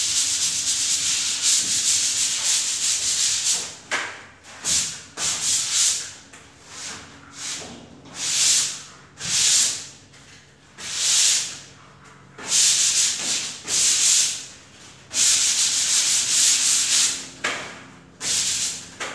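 Hand sanding of dried putty on gypsum board walls and ceiling: the sandpaper rasps in quick continuous rubbing for the first few seconds, then in separate strokes about once a second. This is the finishing stage after the puttying, smoothing the putty before paint.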